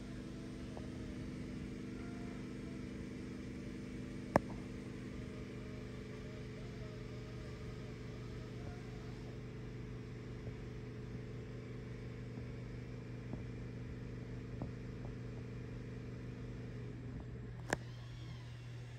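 PSI Turncrafter Commander variable-speed wood lathe running, a steady electric motor hum with several pitches. Most of the hum drops out near the end, leaving a lower hum. A sharp click sounds about four seconds in and another just after the drop.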